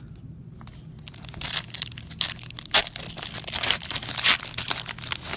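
Trading-card pack wrapper crinkling and tearing as it is opened and handled, a dense irregular crackle that starts about a second and a half in.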